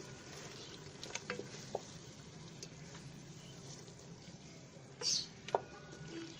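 Meat and spices frying in a pot: a low, steady sizzle, with a few light clicks of a utensil against the pot and a brief sharper sound about five seconds in.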